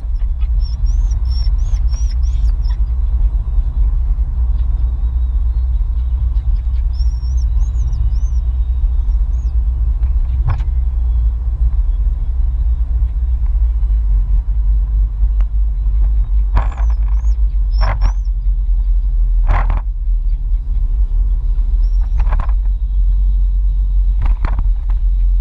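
Steady low rumble of a car's engine and road noise heard inside the cabin while driving. A few short sharp knocks come in the second half, and faint high chirping squeaks come and go.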